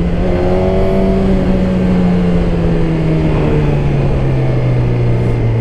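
Motorcycle engine running while riding, its pitch falling slowly and steadily as the revs drop, over a steady rush of wind noise.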